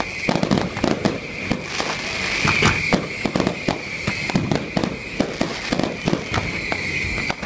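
Fireworks display: aerial shells and firecracker-type effects going off in quick succession, a dense run of bangs over a steady high-pitched whistle.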